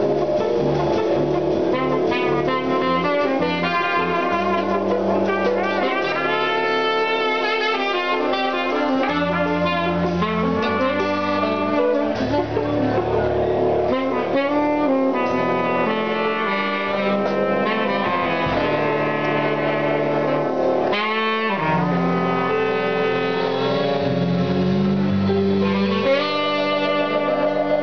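Live R&B band playing: trumpet and saxophone play melody lines over a bass line that steps from note to note, with a didgeridoo blowing in the mix.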